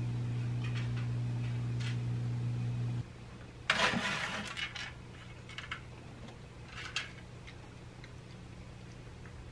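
A steady low hum that stops abruptly about three seconds in. Then a cat eats dry kibble from a clear plastic bowl: a loud burst of crunching and kibble rattling against the plastic, then a few sharp clicks of food on the bowl.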